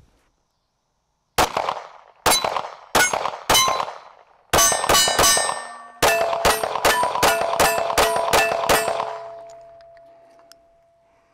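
Live Free Armory AMP 9mm pistol fired in a string of about eighteen shots: four spaced out, then faster groups at about three shots a second. Steel targets clang and ring as they are hit, and the ringing fades out after the last shot.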